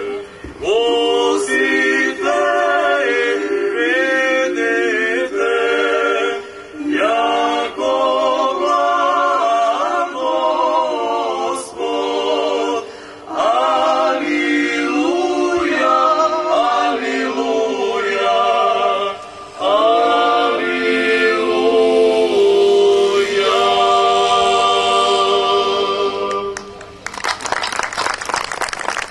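A small mixed group of women's and men's voices singing a cappella in parts, phrase after phrase with short breaks for breath. Near the end the singing stops and the audience applauds.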